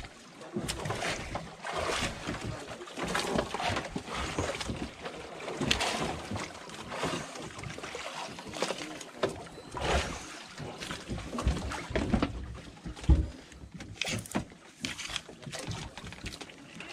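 Irregular rustling and knocking from a fishing rod and spinning reel being handled, over water and wind noise around a small boat at sea. One loud low thump comes about 13 seconds in.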